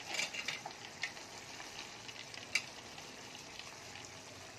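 Chicken and onion tagine simmering in its sauce: a steady faint sizzle. A few light clicks sound over it, the sharpest about two and a half seconds in.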